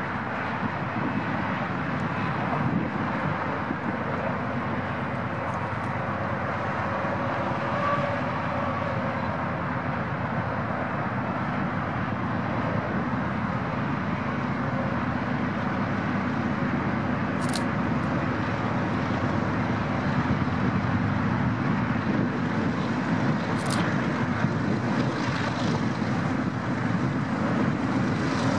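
Diesel locomotives of an approaching BNSF freight train running, a steady engine noise that grows slowly louder as the train draws near.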